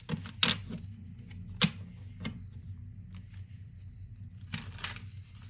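Tarot cards being handled: a few sharp taps and slaps as cards are picked up and laid down, the loudest about half a second and about a second and a half in. Near the end there is a brief swish of cards sliding.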